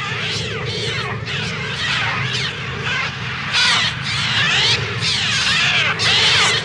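A flock of seagulls screeching, many harsh cries overlapping and sliding up and down in pitch, growing louder about three and a half seconds in.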